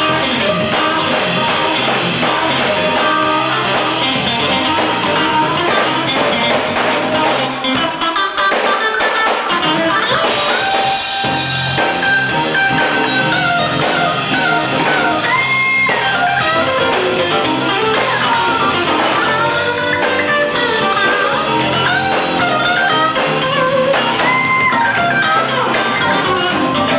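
Live band playing, with an electric guitar solo over drums and the rest of the band; the guitar holds long, bent notes around the middle and again near the end.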